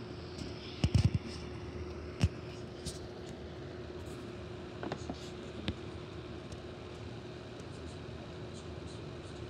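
Steady hum with a cluster of low thumps about a second in, a sharp knock a second later and a few faint clicks: handling noise from a handheld camera.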